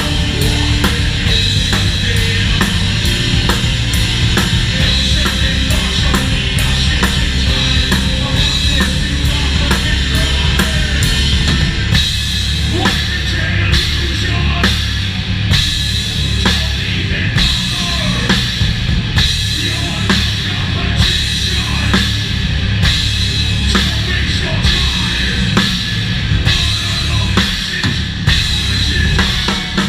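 A live rock band playing loud, heard from behind the drum kit: bass drum, snare and cymbals over electric guitar and bass. About twelve seconds in, the drumming settles into a steady run of regular hard hits.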